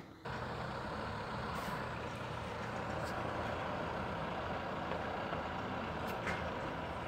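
Steady outdoor urban background noise, an even continuous rumble of distant traffic, setting in abruptly just after the start.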